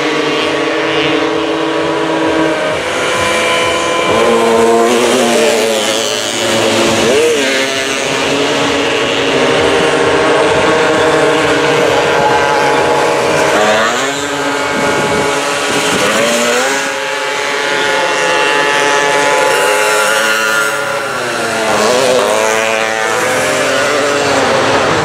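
Several VéloSoleX mopeds' small two-stroke engines buzzing at full throttle as they race past one after another, each engine's pitch rising and falling as it goes by.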